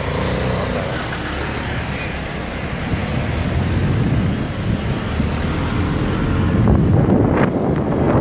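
Motorcycle running along a street with engine and road noise, getting louder near the end.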